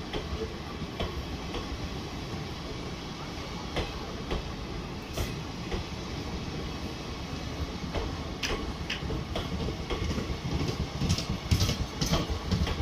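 Coaches of the Bhubaneswar Jan Shatabdi Express running past at speed: a steady rumble of wheels on rails, with sharp clicks as the wheels cross rail joints, the clicks coming thicker and louder in the last few seconds.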